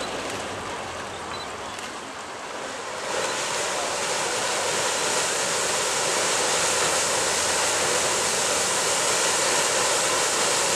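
Side paddle wheel of the paddle steamer La Suisse churning the lake water, a rushing splash that comes in suddenly about three seconds in and grows a little louder.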